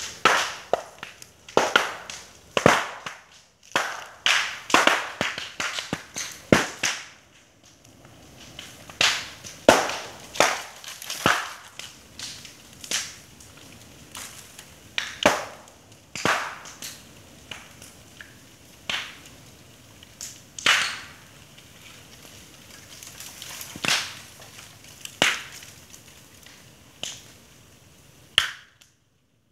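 Bamboo burning, its stems giving off sharp pops and cracks over a low crackle of flames. The pops come thick and fast for the first several seconds, then about one every second or two. They come from the sealed sections of the stems bursting as the air and moisture trapped inside heat up.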